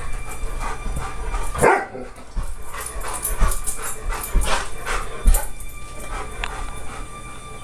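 Bernese mountain dog barking about four times at animals on a TV screen.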